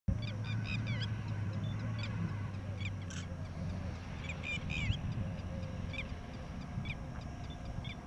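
Wild birds chirping: short, quick high calls in several bouts over a steady low rumble.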